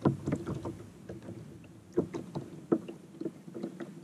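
Water lapping against a kayak's hull, with irregular light knocks and taps from the boat and gear being handled; the sharpest knocks come right at the start, about two seconds in and shortly after.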